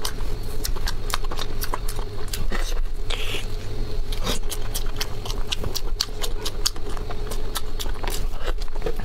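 Close-miked eating sounds: rapid wet smacks and clicks of a mouth biting and chewing soft, gelatinous stuffed lamb tripe, several clicks a second, over a steady low hum.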